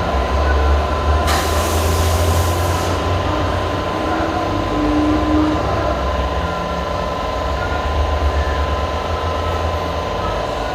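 Car accessories shop ambience: a steady low rumble with a constant high tone over it, and a burst of hiss about a second in that lasts about a second and a half.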